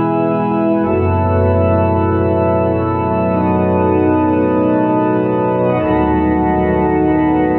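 Tokai YX 400 electronic organ playing a slow hymn in sustained chords with a bass line, on a pipe-organ registration. The chord and bass change about a second in and again near the end.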